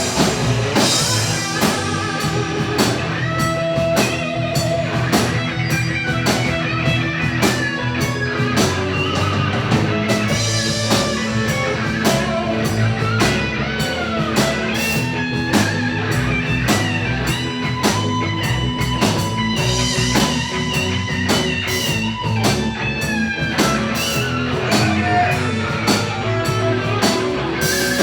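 Live rock-and-roll band in an instrumental break: a lead guitar solo with bent notes over a steady drum beat and bass.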